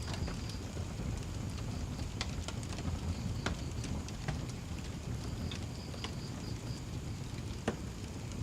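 Wood fire crackling: scattered sharp pops and snaps over a low steady rumble, with one louder snap near the end. A faint, high, pulsing chirp comes and goes in the background.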